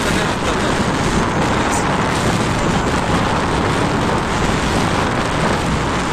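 Steady rush of wind over the microphone mixed with road noise from a vehicle travelling along a highway.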